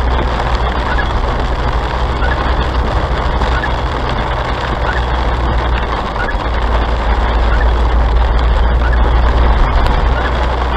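Steady drone of a car driving at about 40 km/h on a wet road, heard from inside the cabin: engine and tyre noise, swelling slightly near the end.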